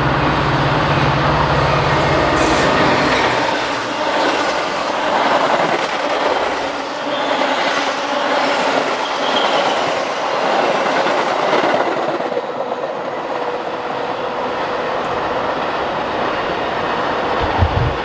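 Metra commuter train passing at speed on the nearest track, its steel wheels running loudly over the rails. A low steady engine drone fills the first three seconds.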